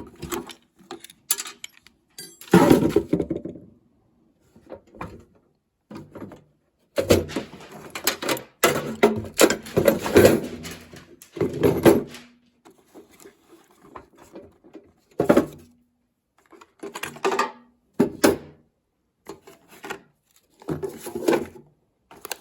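Hand tools clattering and knocking as they are set into a Tyvek-lined metal toolbox. The sound comes in a string of separate bursts with pauses, busiest in the middle.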